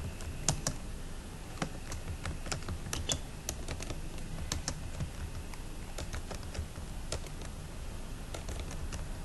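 Typing on a computer keyboard: a run of irregular keystroke clicks, a few each second, with no pauses longer than a moment.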